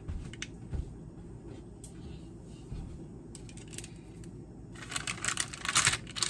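A few light clicks and taps of handling, then from about five seconds in a busy crinkling of a plastic pouch of cookie dough being picked up and opened.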